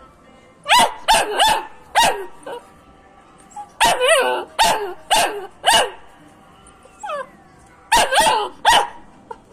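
Belgian Malinois puppy barking: high, yappy barks in three bursts of three or four, with pauses between the bursts.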